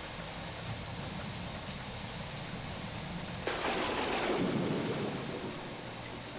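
Thunderclap sound effect: a sudden crack about three and a half seconds in that rumbles downward and dies away over a second and a half, over a steady hiss and low hum.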